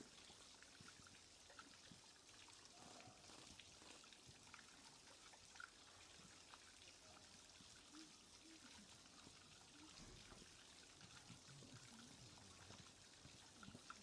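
Near silence: a faint steady hiss with scattered faint clicks.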